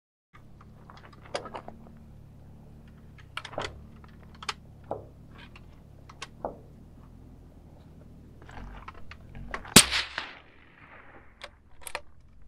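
One shot from a suppressed 5.56 bolt-action rifle, a TC Compass with a 9-inch homemade Form 1 suppressor, about ten seconds in: a sharp crack with a short trailing echo. Lighter clicks and knocks come before it.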